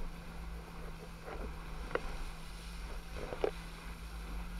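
Wind buffeting the camera microphone and water rushing past as an inflatable banana boat is towed at speed across choppy sea, over a steady low hum. A few short, sharper sounds stand out, the loudest about three and a half seconds in.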